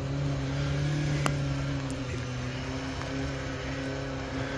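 BMW-engined Suzuki Samurai running at high, nearly steady revs as it climbs a slippery mud slope.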